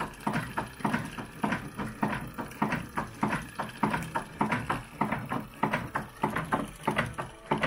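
Vintage Singer 15K sewing machine running, its handwheel turning: a steady mechanical clatter of about four knocks a second from the all-metal mechanism.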